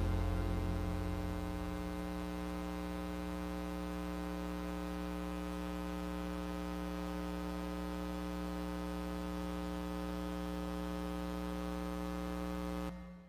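Closing chord of a karaoke backing track, held as a steady sustained chord of several notes. Its low notes die away over the first couple of seconds, and the chord cuts off abruptly near the end.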